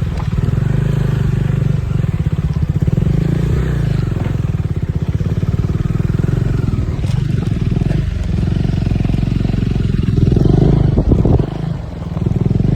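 Motorcycle engine running steadily under way, with a brief dip in level near the end.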